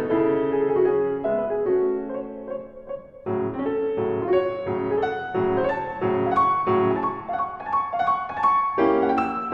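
Background piano music, played as a run of separate notes. It thins out and dips briefly about three seconds in, then carries on.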